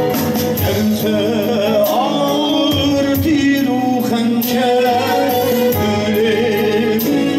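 A man sings a Turkish folk song in a wavering, ornamented voice through a microphone and PA. A bağlama (long-necked saz lute) and an electronic keyboard accompany him.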